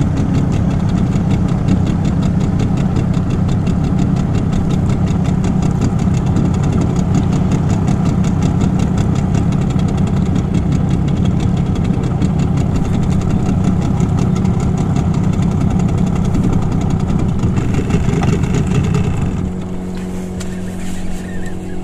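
Boat's outboard motor running steadily, then throttled back to run quieter about nineteen seconds in.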